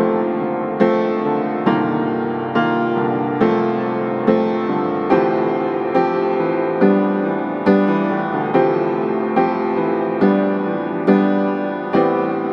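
Background music: slow piano chords struck at an even pace, a little over one a second, each dying away before the next.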